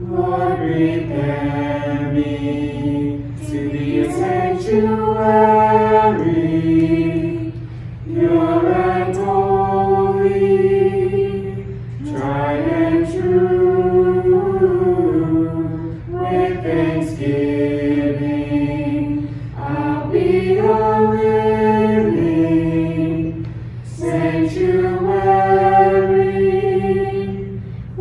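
A choir singing a slow hymn in long held phrases, each about four seconds, with a steady low tone sounding underneath.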